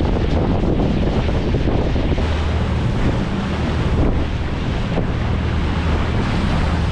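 Wind buffeting the microphone on the deck of a passenger ferry under way, over the steady low hum of the ferry's engines and water rushing past the hull.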